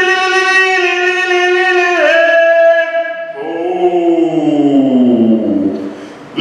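A man singing wordless, held notes into a microphone: one long note, a step up to a higher note about two seconds in, then a slow slide down in pitch that fades out near the end.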